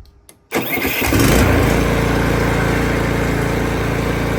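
Toro TimeMaster lawn mower engine starting about half a second in, then running steadily.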